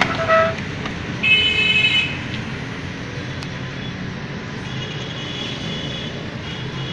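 Steady street-traffic rumble, with a vehicle horn tooting once, briefly and loudly, about a second in, and a fainter high tone a few seconds later.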